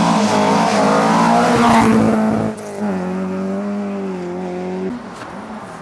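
Historic rally car engine running hard at high revs as the car passes on a snowy gravel stage, with hiss from the tyres and thrown snow and gravel in the first two seconds. About halfway through the engine note steps down and holds steady, then drops away near the end.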